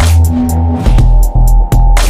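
Electronic intro music with a heavy bass line and sharp, hard-hitting beats.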